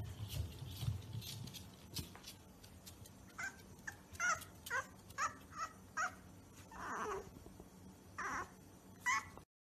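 Bulldog puppy yipping. About three seconds in it gives a quick run of short, high yelps, then a few longer whining howls.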